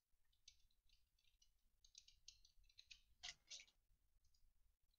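Faint crinkling and tearing of a trading card pack's plastic wrapper as it is opened by hand: a run of short crackles, with two louder ones about three seconds in.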